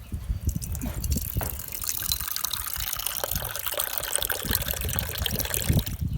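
Water pouring or gushing steadily, starting just after the beginning and cutting off at the end.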